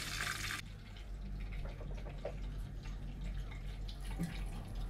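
Sizzling from the wok that cuts off abruptly about half a second in. A steady low hum and a few faint scrapes and taps of a wooden spatula on the wok follow.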